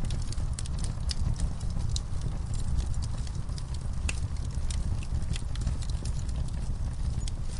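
Wood fire burning in a fireplace: a steady low rumble of flames with irregular crackles and sharp pops from the burning logs.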